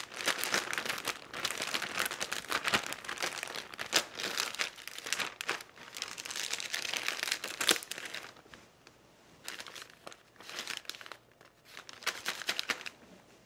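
Plastic zip-top bag crinkling as chicken pieces are shaken in flour inside it. The rustling is dense for the first eight seconds or so, then thins to scattered crinkles.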